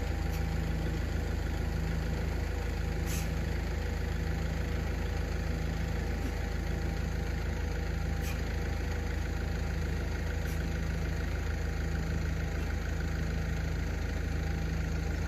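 Steady low machine hum, with a few faint ticks over it.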